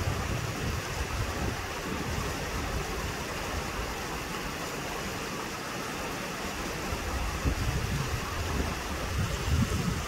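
Strong rushing water of a mountain stream, steady throughout, with wind buffeting the microphone in gusts. The gusts ease around the middle and pick up again near the end.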